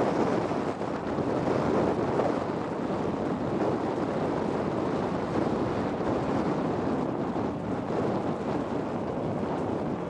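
Steady rushing noise of MBTA commuter rail coaches rolling slowly past, mixed with wind on the microphone.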